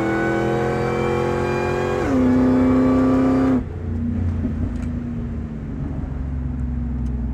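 2001 Ford Lightning's supercharged 5.4-litre V8 at full throttle, heard from inside the cab: its pitch climbs, drops with an upshift about two seconds in, then climbs again. About a second and a half later the driver lifts off, and the engine falls to a quieter, lower steady hum as the truck slows.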